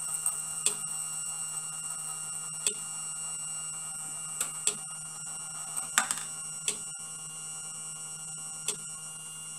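Battery-driven brass marble machine running: its small motor and worm gears whine steadily. Now and then a steel ball clicks sharply as the spoked wheels hand it up between the brass arms and wire tracks.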